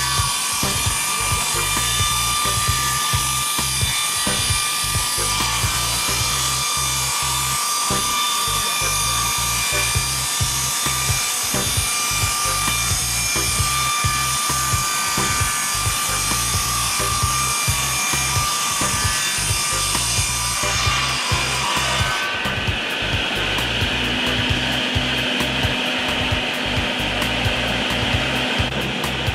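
WRAVOR type 500-S circular saw blade cutting along a timber beam: a steady rasping whine that ends about 21 seconds in. Background music plays throughout.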